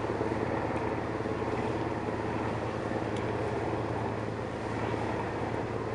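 A motor engine running steadily at idle: a low, even hum with a wash of harbour noise over it.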